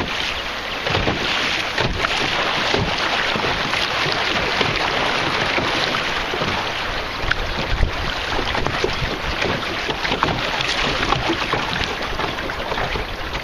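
Rushing water of a class 1 river rapid around a canoe, a steady loud wash with many small splashes and clicks through it, mixed with wind on the microphone.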